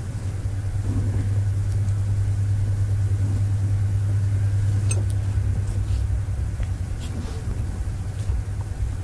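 Steady low hum, strongest in the first half and easing later, with a few faint light clicks.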